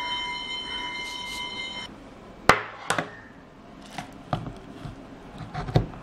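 A steady high-pitched tone sounds for about the first two seconds and cuts off suddenly. Then come sharp plastic clicks and knocks, the loudest about halfway through, as a laptop power cord's moulded plugs are handled and the mains plug is pushed into a power strip near the end.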